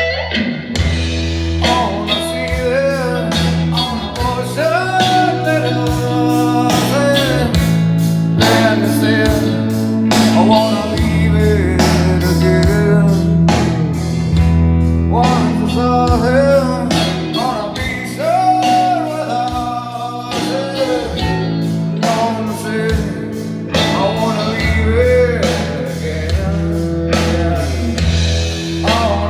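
A song with a singing voice, guitar, bass and a steady drum beat, played back through Dayton Audio Classic T65 floorstanding tower speakers with no subwoofer.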